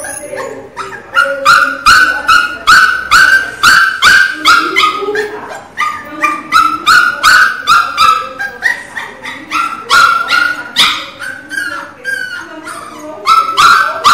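Pinscher puppy crying loudly: a rapid run of short, high-pitched yelping cries, about three a second, easing briefly near the end.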